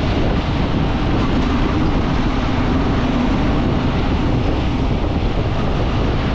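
Steady wind rush over a helmet-mounted GoPro's microphone from a motorcycle cruising at about 40 km/h, with the bike's engine humming underneath. It is recorded through a GoPro microphone that the rider says has gone bad.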